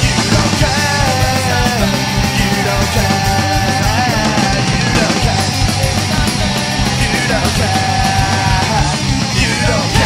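Pop-punk band recording playing loud and fast, with electric guitars and drums and bending melodic lines over them.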